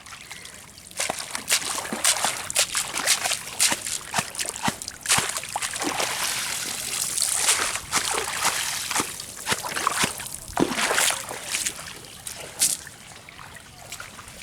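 Water splashing, sloshing and dripping as a fishing net is hauled through and out of shallow water, in irregular splashes that begin about a second in and die down near the end.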